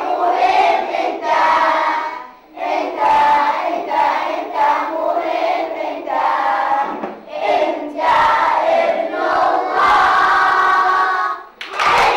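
A class of young children singing together in unison, an action song sung in phrases with short breaks about two and a half seconds in and near the end.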